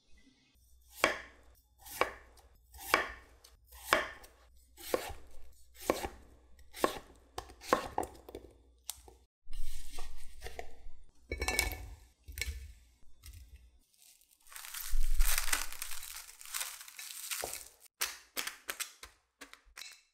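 Kitchen knife cutting peeled potatoes on a wooden cutting board, about one stroke a second, then a few knocks as the cubes are handled. Near the end, a longer crackling hiss of plastic cling wrap being stretched over a dish.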